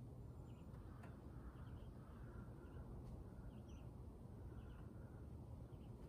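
Faint bird chirps, short high notes mostly in pairs, repeating about once a second over a low steady rumble.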